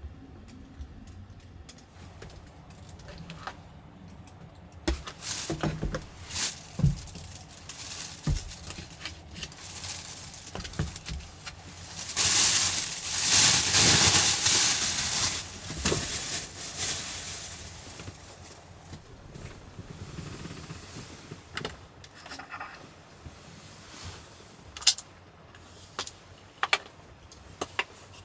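Someone handling gear at close range: scattered clicks, knocks and rattles, with a loud stretch of rustling or scraping a little before the middle.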